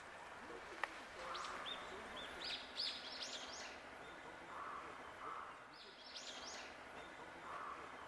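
Common kingfisher giving high, thin calls in two bursts of short arched notes. The first burst starts about a second and a half in and climbs in pitch over two seconds; the second is a shorter run about six seconds in.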